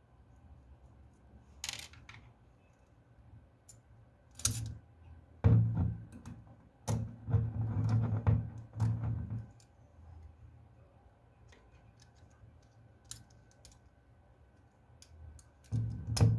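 Light metallic clicks and taps from hand tools and small parts of a Veglia mechanical alarm clock's movement as it is taken apart. A busier run of clattering knocks comes in the middle, and another knock comes near the end.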